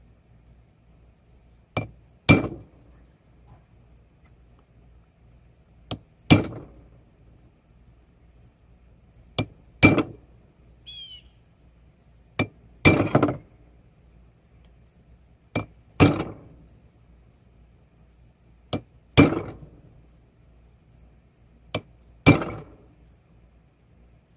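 Hand hammer striking hot railroad-spike steel on an anvil to cut the skull's teeth: a light tap then a heavy blow, seven times over, about every three seconds, each with a short metallic ring.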